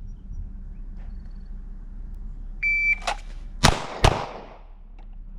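A shot-timer beep, then a pair of handgun shots fired about 0.4 s apart, the first coming roughly three quarters of a second after the beep.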